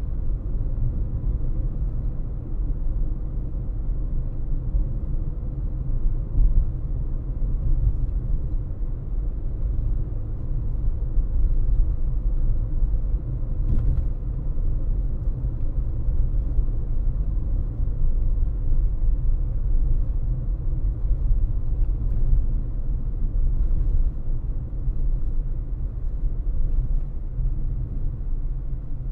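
Steady low rumble of a car driving along a road: engine and tyre noise with no sharp events.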